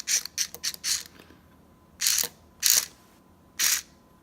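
Remote-control toy cockroach's small motor and gears whirring in short bursts as it is driven: a quick cluster of bursts in the first second, then three separate ones spaced about a second apart.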